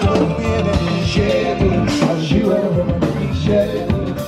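Live band playing: a singer on a microphone over drum kit, electric guitar and keyboard.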